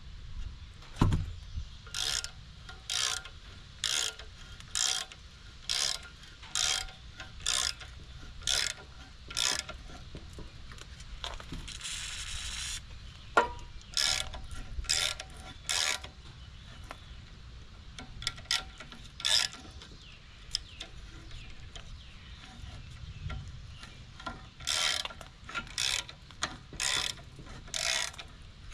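Thread-cutting tap being turned by hand in metal to rethread a tractor cultivator lift-arm part. It makes a short, sharp stroke about once a second, in runs with a pause near the middle and another about two-thirds of the way through.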